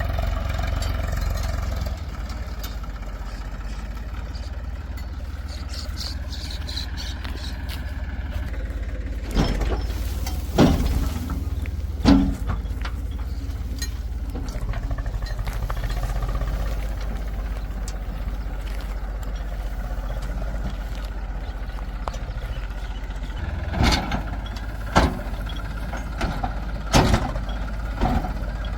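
Heavy diesel machinery engine running steadily, with sharp knocks and clanks in two clusters, about ten seconds in and again near the end.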